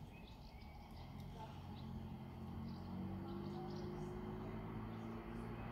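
Heavy machine's diesel engine running, its drone growing louder and rising slightly in pitch from about a second in, with birds chirping.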